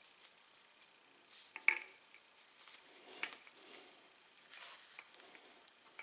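Quiet handling of small metal parts on a bicycle rear hub, with a few faint metallic clicks, the sharpest nearly two seconds in, as gloved fingers work the bearing race (cone) and fittings on the axle.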